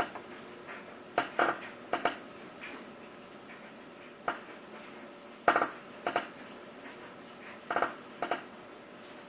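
Short metallic clinks and scrapes of small hand tools and hardware on a steel computer case, coming irregularly, about eight in all.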